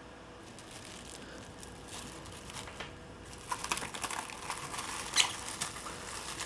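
Crinkling with light clicks, starting about three seconds in, with one sharper click near the end.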